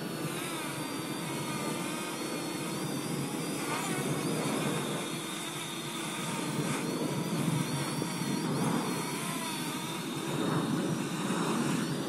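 Parrot Anafi quadcopter's propellers whining as it hovers and manoeuvres close by, the pitch wavering up and down. Wind rumbles on the microphone underneath.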